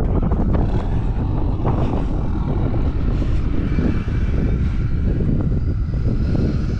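Strong gusting wind buffeting the microphone: a steady, loud low rumble with no clear pitch.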